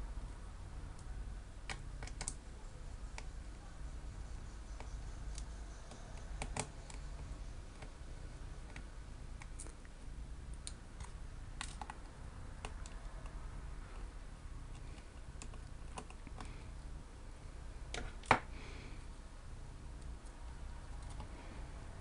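Scattered small clicks and ticks of a precision screwdriver working out the screws that hold a laptop hard drive in place, with one sharper click about eighteen seconds in.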